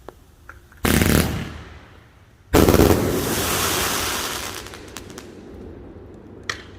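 Two loud blasts from a 221-shot firework cake, about a second and a half apart. The second is louder and trails off over about two seconds.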